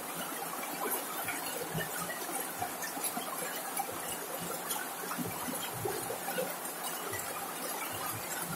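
Rain falling on a corrugated zinc sheet roof: a steady, dense patter of many small, irregular drop hits.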